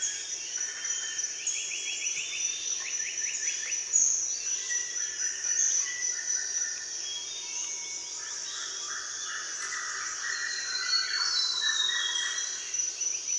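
Several birds chirping and trilling over a steady high insect-like drone, with one sharp click about four seconds in.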